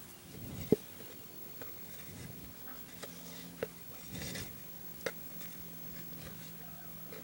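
Fingers handling and knotting embroidery floss against a wooden clipboard: faint rubbing and scraping with a few light clicks, the sharpest about three-quarters of a second in.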